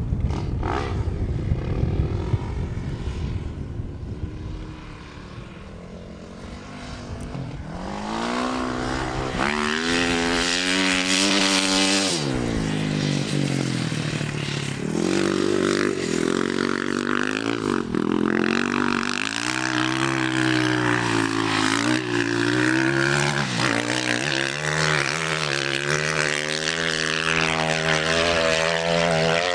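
Dirt bike engine revving hard, its pitch climbing and dropping over and over as the throttle is worked. For the first several seconds there is mostly wind noise on the microphone, and the engine comes in strongly about eight seconds in.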